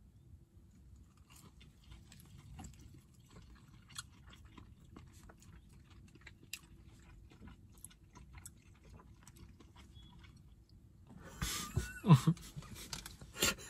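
Faint, wet chewing of soft fried chicken nuggets, with small clicks and smacks from the mouth. Near the end, two men laugh.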